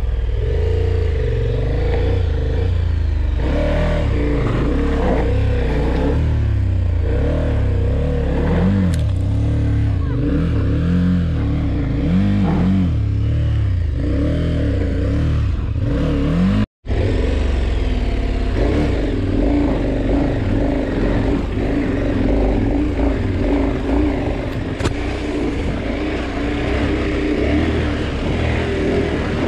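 Adventure motorcycle engine revving up and down in bursts while the bike is ridden and pushed up a steep, loose rocky climb. The sound cuts out for a moment about two-thirds through, then a motorcycle engine runs more steadily while riding along a dirt track.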